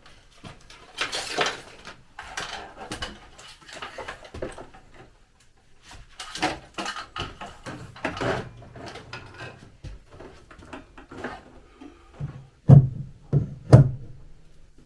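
Hands-on electrical work: rustling and scattered clicks and knocks as an electrical cable is handled and stapled along a wall, with two loud thumps about a second apart near the end.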